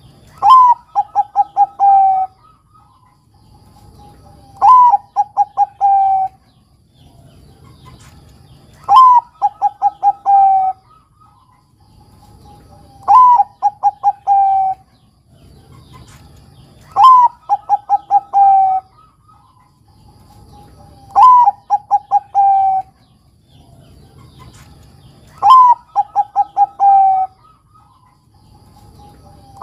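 Bangkok-line zebra dove (perkutut) singing its cooing song. Each phrase is one high opening note followed by a quick run of about five short lower notes, the last one drawn out. The phrase repeats evenly about every four seconds, seven times.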